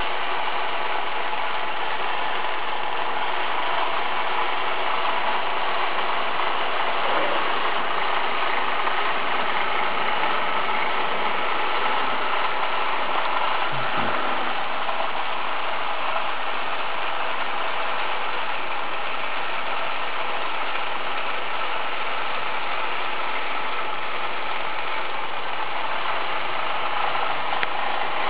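HO-scale model bobsleigh ride running: a steady mechanical whirr of its small drive and car running on the plastic track.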